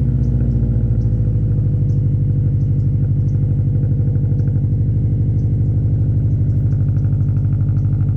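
2020 Subaru WRX STI's turbocharged 2.5-litre flat-four engine idling steadily just after a cold start, its note settling slightly in the first second.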